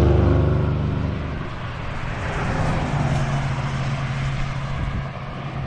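A motor engine passing, loud at first and fading over the first second or two, then a steady low engine drone from about three seconds in.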